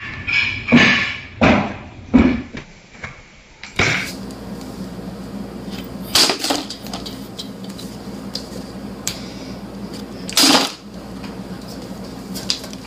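Plastic water bottles flipped and landing with knocks and thuds on a tiled floor and into a plastic bucket, about seven separate impacts. A low steady hum runs underneath from about four seconds in.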